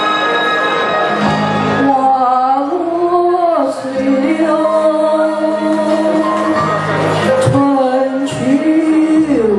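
A woman singing a slow Mandarin ballad into a handheld microphone over a karaoke backing track. The backing's keyboard chords are heard alone at first, and her voice comes in about two seconds in.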